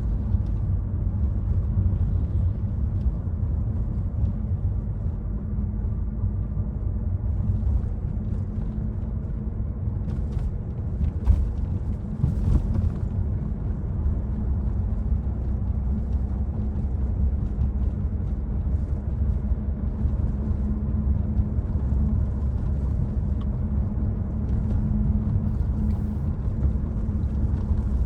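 Citroen C5 Aircross driving in city traffic: a steady low rumble of engine and road noise, with a short knock about eleven seconds in.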